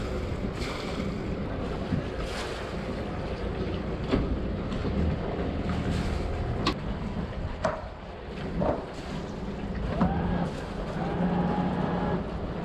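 Sailboat's inboard engine running slowly while manoeuvring alongside, with wind on the microphone and a few short knocks.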